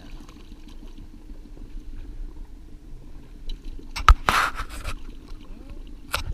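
Small outboard kicker motor running steadily at trolling speed. About four seconds in, a sharp knock and a brief scrape come as a bent trolling rod is lifted out of its holder on a hooked fish, with another knock near the end.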